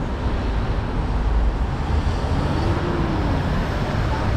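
Steady city traffic noise with a low wind rumble on the microphone during a bicycle ride. A faint tone rises and falls about two to three seconds in.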